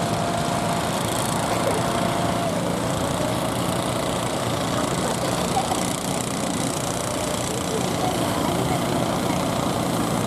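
Fishing boat engines running steadily over a continuous wash of surf.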